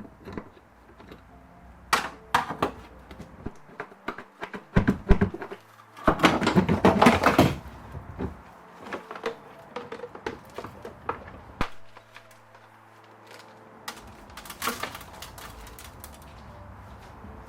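Clicks, knocks and rattles of plastic dashboard and heater-housing parts and tools being handled while the heater unit is taken apart, with a longer scraping rattle about six seconds in and another shorter one near fifteen seconds.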